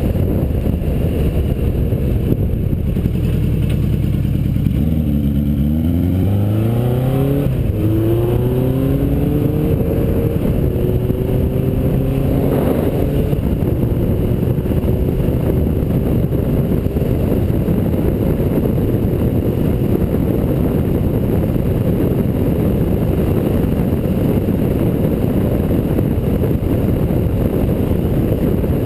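Suzuki GS850's air-cooled inline-four engine running under way, with heavy wind noise buffeting the microphone. About five seconds in, the engine note drops, then climbs again in several steps as the bike accelerates up through the gears, before settling to a steady cruise.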